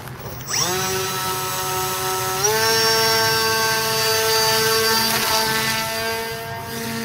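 Electric motor and propeller of a foam FPV flying wing spinning up to a steady, many-toned whine about half a second in, then stepping up in pitch a couple of seconds later as the throttle is raised for the hand launch, holding there as the wing flies off.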